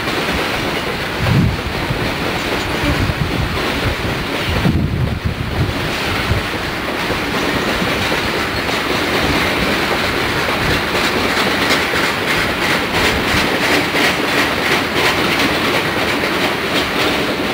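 Coal hopper cars rolling past, their steel wheels rumbling on the rails and clicking over the rail joints in a steady, fast rhythm that grows more distinct in the second half.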